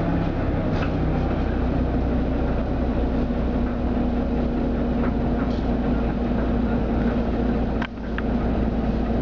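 Jelcz 120M/2 LPG city bus running at low speed, heard from inside the passenger cabin: a steady engine drone and hum with low rumble. A short click and a brief dip in level come about eight seconds in.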